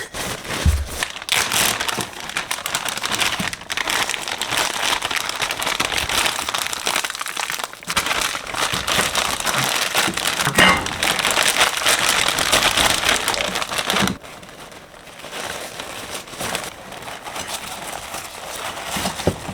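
Plastic packaging crinkling and rustling as it is handled and opened. The crinkling is dense for about the first fourteen seconds, then quieter.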